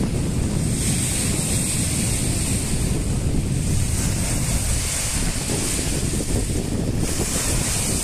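Storm-driven lake waves breaking and washing over a rocky shore, with gusty wind buffeting the microphone as a steady rumble.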